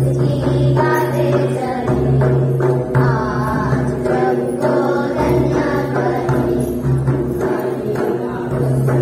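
Group of voices singing a folk dance song together, with a barrel drum beating along and a jingling percussion layer.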